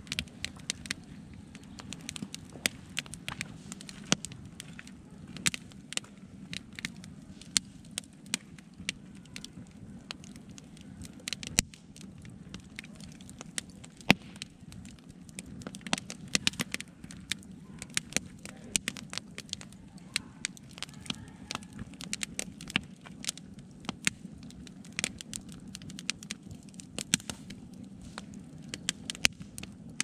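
Wood campfire burning and crackling, with frequent sharp, irregular pops of varying loudness over a steady low rush.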